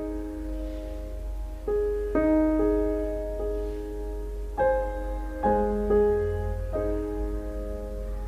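Slow, soft background piano music: gentle held chords, with a new chord struck every second or two.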